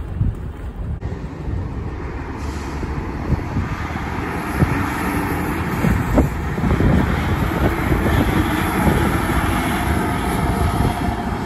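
Heavy truck going past close by: diesel engine and tyre noise building from about two seconds in and loudest in the second half, over a constant low rumble.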